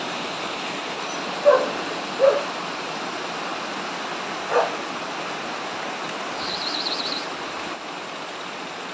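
Three short animal cries, about one and a half seconds in, just after two seconds and midway, over a steady background hiss.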